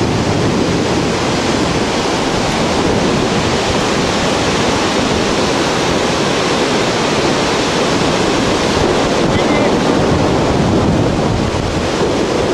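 Steady rushing of whitewater rapids in the gorge below, with wind on the microphone.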